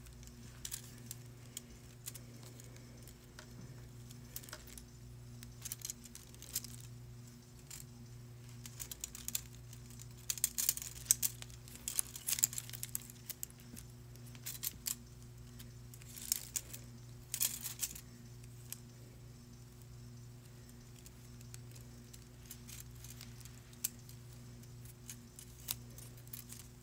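Faint, scattered clicks and light clatter of small nail tools and containers being handled, busiest around the middle, over a steady low electrical hum.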